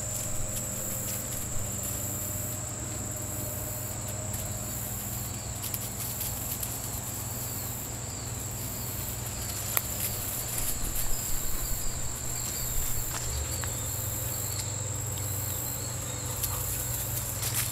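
A steady, high-pitched outdoor insect chorus, with scattered light rustles and crackles of puppies pawing and nosing through dry leaf litter and twigs, busiest about ten to thirteen seconds in.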